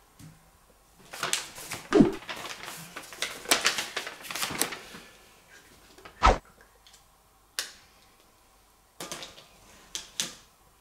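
Folded paper instruction leaflet rustling and crackling as it is unfolded and handled, in irregular bursts, with one sharp knock about six seconds in.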